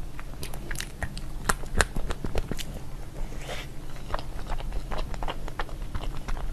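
Close-up biting and chewing of a chocolate-coated Brown Bear snow-skin mochi (xuemeiniang), with many irregular sharp crackling clicks.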